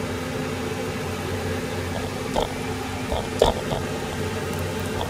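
Garlic cloves dropped one by one into a frying pan with oil, giving a few light taps between about two and a half and four seconds in, over a steady mechanical hum.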